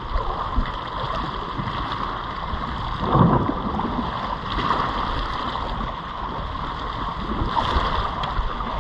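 Sea waves washing and wind buffeting the microphone, a steady rushing noise with one louder surge about three seconds in.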